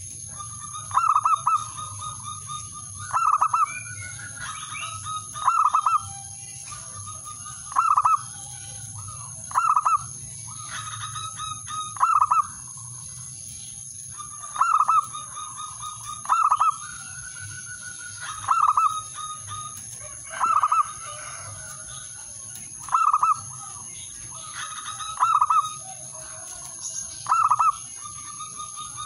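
Male zebra dove (perkutut) cooing its short, staccato song over and over, one call about every two seconds. A steady high-pitched whine and fainter chirps run underneath.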